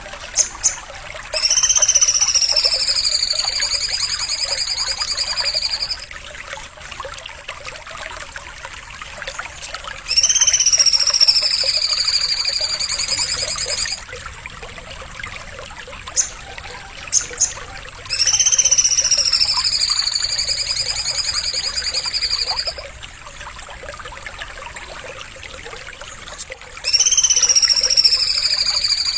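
A songbird's high, rapidly trilled, buzzy call, each lasting about four seconds: a quick downward sweep that then levels off. The same call repeats four times, about every eight seconds, as a looped masteran recording for teaching caged birds, with a few short chips in the gaps.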